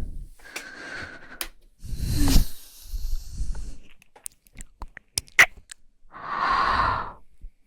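A woman breathing close to the microphone: several breathy exhales and sighs about a second each, with a few small mouth clicks between them.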